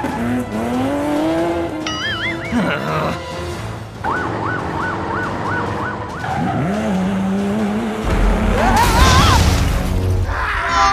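Cartoon sound effects over background music: toy-vehicle engine and skid effects with gliding tones, and a quick run of repeated beeps in the middle. About eight seconds in comes a loud crash effect with a rising tone, for the toy dump truck tipping over.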